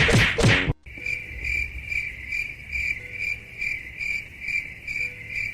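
Cricket chirping in an even rhythm, about two chirps a second. It starts about a second in, right after a short loud pitched sound cuts off.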